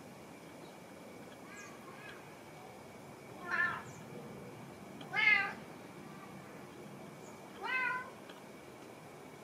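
Domestic cat meowing: three short meows a second or two apart, the middle one loudest, with a fainter call before them.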